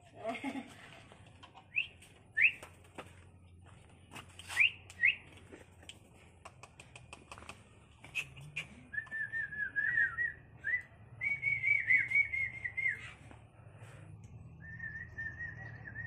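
Human whistling: a few short rising whistles, then longer warbling runs of whistled notes with brief pauses, with scattered light clicks.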